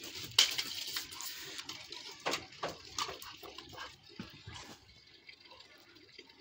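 Water splashing and pouring while a dog is bathed. A rush of splashing starts about half a second in, followed by scattered splashes that die away after about four and a half seconds.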